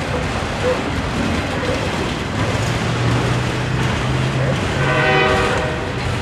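Freight train of autorack cars rolling slowly past: a steady rumble and rattle of wheels on the rails. A low hum comes in about two and a half seconds in, and near the end there is a brief higher tone with several overtones.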